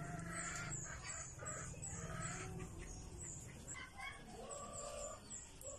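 Backyard birds calling: a high chirp repeated about three times a second, with shorter, lower calls among it. A low hum runs underneath and stops about halfway.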